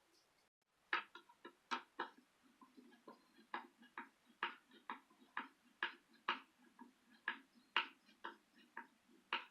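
Light, irregular clicks and taps, about two a second, from handling and fitting flat-pack shelf parts and screws.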